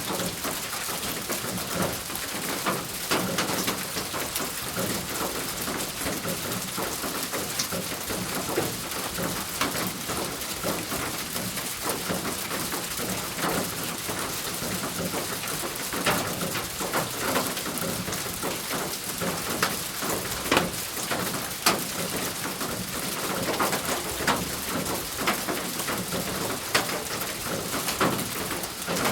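Steady rain falling on a thin roof: a dense hiss of drops with many louder single drops striking sharply throughout.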